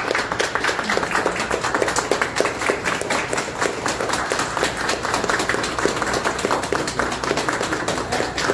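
A small group clapping their hands in steady applause, many quick, overlapping claps.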